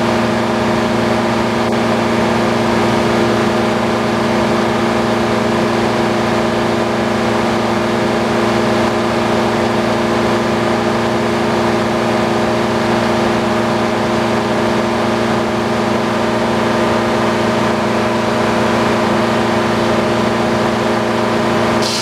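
Old circular sawmill running between cuts: the big circular saw blade spins free and the belt-driven mill hums steadily with several held tones. Right at the end the blade starts into a pine log, adding a sudden high hiss.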